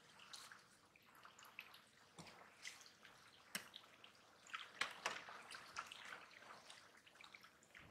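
Faint, irregular wet clicks and small rustles of hands picking through a heap of wet small fish, shrimp and leaves on a plastic sheet.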